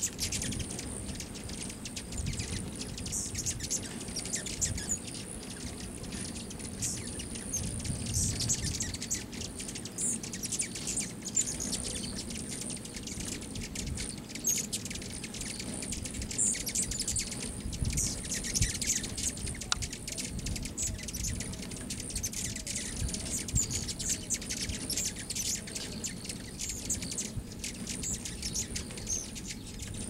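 A crowd of hummingbirds at feeders: a steady chatter of many short, high, squeaky chirps and chips overlapping one another, over a low rumble.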